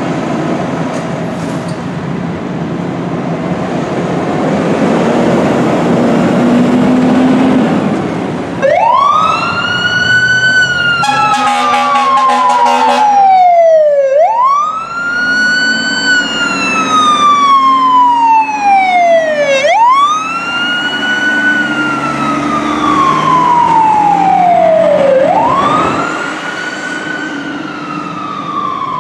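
A fire truck's diesel engine revving as the rig pulls out. Then its mechanical siren winds up quickly and coasts slowly back down, four times in a row. About a third of the way through, it overlaps with a couple of seconds of air-horn blasts.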